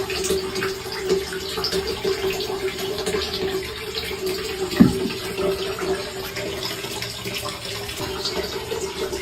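Water running steadily, with a constant low hum under it and a single low thump about five seconds in.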